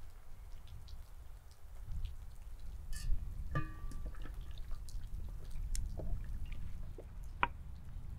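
Wet, sticky sounds of boiled fish meat being pulled apart by hand, with many small scattered clicks and drips. A brief ringing clink comes about three and a half seconds in, and a sharp click near the end, over a steady low rumble.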